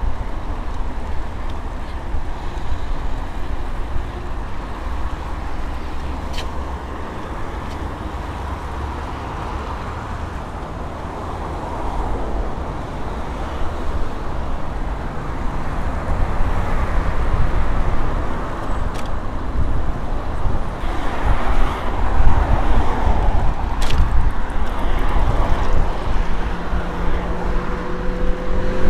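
Wind rumbling on the microphone of a moving bicycle, with road traffic noise that grows louder from about halfway through. A few sharp ticks come through.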